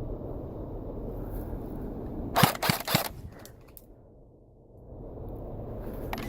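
Airsoft gun firing a quick run of about four sharp shots, followed by a couple of fainter clicks. Before the shots there is a low rumble of wind on the microphone.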